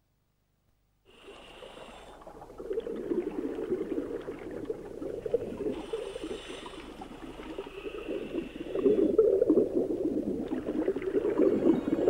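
Underwater bubbling from scuba divers' exhaled air, a gurgling wash starting about a second in, with hissing regulator breaths coming and going every few seconds.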